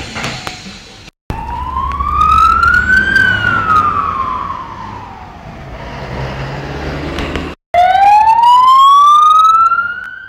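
Ambulance siren in slow wail mode: the pitch rises and then falls gradually, and after a short break it rises again. A low vehicle rumble runs underneath.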